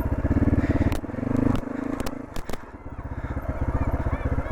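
Motorcycle engine running at low revs with a steady, rapid throb. It dips briefly about two-thirds of the way through, and a few sharp clicks come around the middle.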